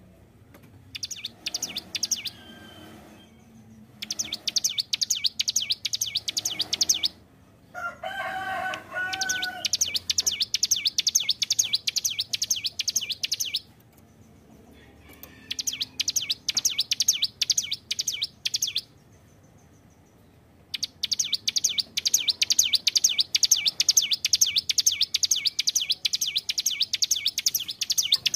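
Ciblek gunung (a prinia) singing in long bursts of rapid, evenly repeated high notes, each burst lasting a few seconds with short pauses between. About a third of the way in there is one brief, lower call.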